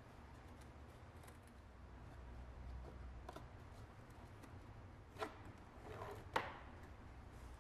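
Quiet handling of a cardboard pattern being taped to a wooden frame with painter's tape: faint rustles and light clicks, then two sharp snaps a little after five seconds and at about six and a half seconds.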